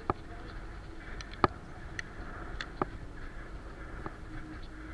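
Wind rumbling on the camera microphone, with about six sharp, irregular clicks or knocks, the loudest about one and a half seconds in.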